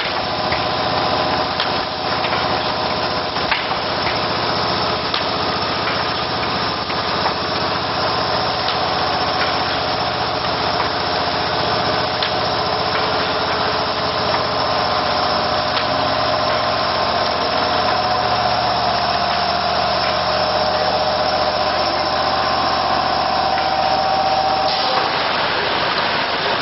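ED-MLC-201-6 drip cup coffee filling-sealing machine running: a steady mechanical hum with several tones and light clicking. A lower part of the hum drops out about 25 seconds in.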